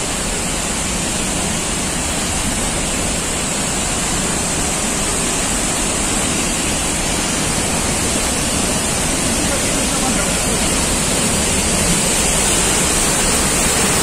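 Palovit waterfall, a 15 m high-volume fall, rushing steadily as a dense, even roar of falling water, growing slowly louder as it is approached.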